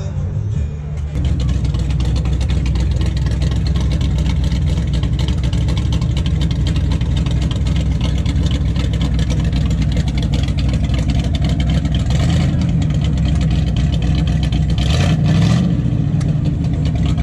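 Engine of a classic Dodge Challenger running at idle, a steady low rumble that gets louder about a second in, with a brief rise in revs near the end.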